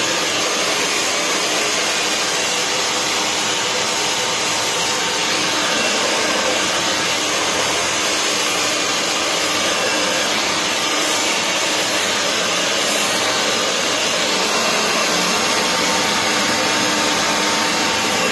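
Handheld hair dryer running steadily as a blow-dry is done over a round brush: an even rush of air with a faint motor hum.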